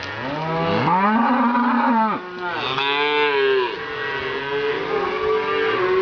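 A herd of cattle mooing, several animals calling at once in long overlapping moos that rise and fall in pitch.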